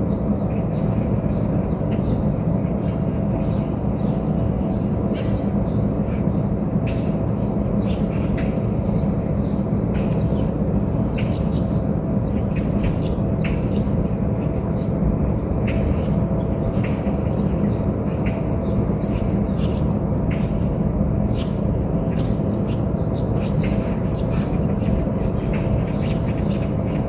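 Wild birds chirping in a forest: quick runs of short, high chirps through the first six seconds or so, then scattered calls. A steady low rumble runs underneath.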